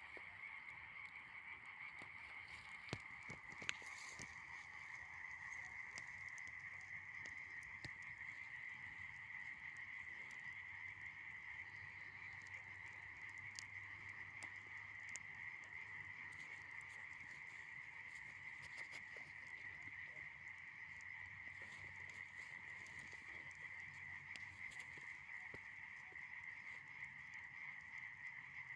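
Faint, steady chorus of frogs calling in the evening, with two sharp pops from the bonfire of dry branches about three seconds in.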